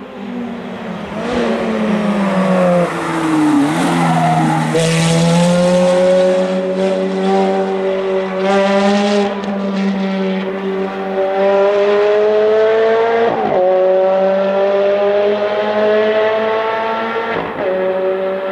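Ferrari F430's V8 with a straight-pipe exhaust, driven hard on track. The engine note falls over the first few seconds as the car slows, then climbs in long full-throttle pulls, each cut by a quick upshift twice in the second half.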